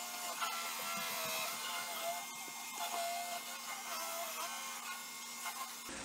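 Roomba robot vacuum running as it climbs a cardboard ramp: its motors whir steadily, with a whine that wavers up and down in pitch.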